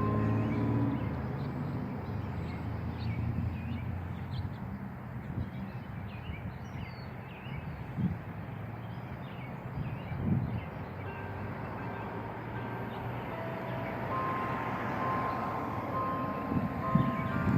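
Church bell notes dying away at the start, then a steady outdoor background rumble with a couple of short thumps. Bell tones come back faintly about eleven seconds in and ring clearly from about fourteen seconds.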